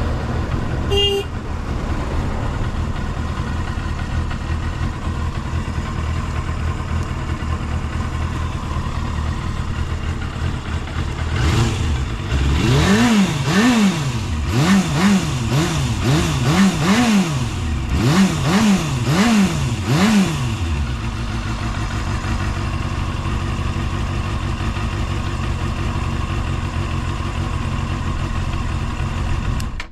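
Kawasaki Balius II (ZR250B) 250 cc inline-four engine idling, then blipped about ten times in three quick bursts in the middle, each rev rising and falling sharply before it settles back to idle. It revs up cleanly with no abnormal noise. A brief beep sounds about a second in.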